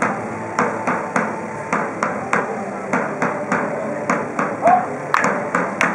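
Drum beaten in a steady rhythm of sharp strokes, about three a second, accompanying a staged staff fight. A short vocal cry comes about four and a half seconds in.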